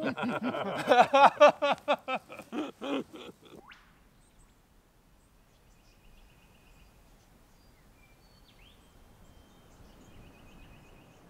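A few men laughing hard together in quick rhythmic bursts, stopping suddenly after about three and a half seconds. Then quiet open air with faint bird calls: a couple of short high trills and a single chirp.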